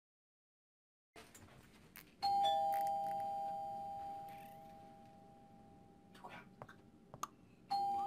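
Doorbell ringing a two-note ding-dong, high then lower, that slowly fades away, then starting to ring again near the end.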